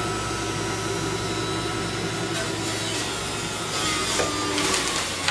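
Breville juicer running on its low setting: a steady motor hum and whine while celery is pushed down the feed chute and shredded, the grinding getting rougher about four seconds in.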